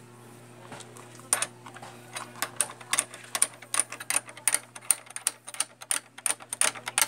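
Quick, irregular sharp metallic clicks and taps of a small hand tool working on a motorcycle's handlebar brake master cylinder. They start a little over a second in and come faster toward the end.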